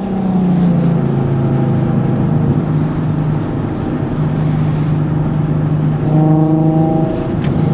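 Nissan 370Z's VQ37 V6 with a Tomei exhaust, heard from inside the cabin, running at a steady engine note while cruising. It grows louder and fuller about six seconds in.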